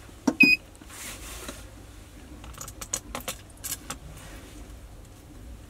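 A button click with a short high electronic beep from a physiotherapy machine's control panel. About two and a half seconds in, water drops on the vibrating ultrasound transducer head spatter into mist with a run of sharp crackles and ticks, the head now running in 1:1 pulsed mode.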